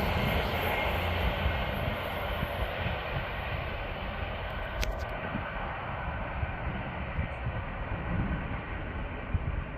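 Rumble of an engineering train running past on the line, fading as it moves away. A single sharp click comes about five seconds in.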